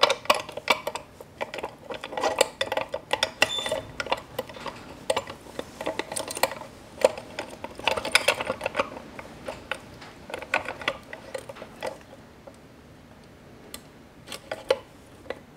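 Metal-on-metal clicks and clinks as the fifth-reverse shift rail is worked through the gearbox case and the fifth-reverse fork of a T5 five-speed manual transmission. The clicks come in an irregular run and thin out after about twelve seconds.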